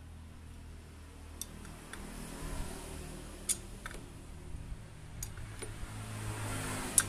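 Occasional light metallic clicks and taps of hand work on a motorcycle's exposed clutch and primary drive gears, with one sharper click near the end, over a low steady hum.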